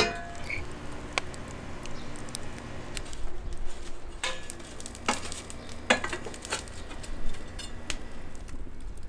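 Food sizzling over a wood-fired grill, with a handful of sharp clicks and knocks scattered through it over a steady low hum.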